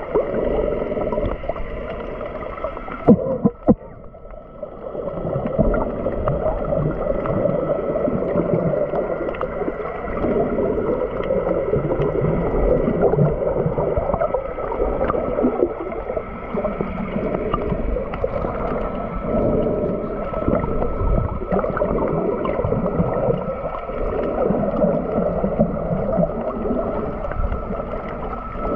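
Muffled underwater noise as picked up by a submerged camera: water gurgling and rushing, with two sharp knocks about three seconds in.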